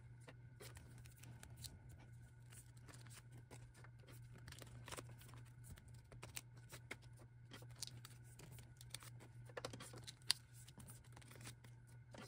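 Faint rustling and crinkling of photocards being slid into plastic binder sleeve pockets, with scattered small clicks and one sharper click about ten seconds in, over a steady low hum.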